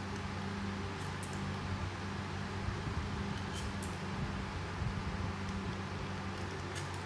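A steady low hum, with a few faint clicks and taps as the metal valve body is handled.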